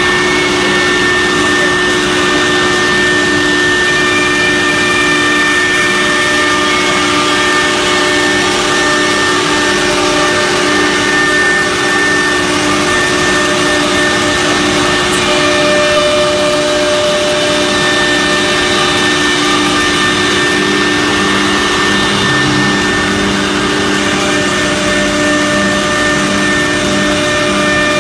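CNC router's 6 kW HSD spindle cutting a board sheet, with its dust extraction drawing through the hoses: a loud, steady machine noise with a constant high whine.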